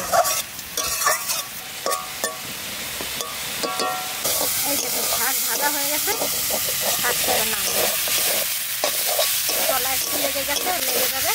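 Data shak (amaranth stems and leaves) frying in oil in a metal wok, sizzling while a metal spatula stirs and scrapes it against the pan. The sizzle grows louder and steadier about four seconds in.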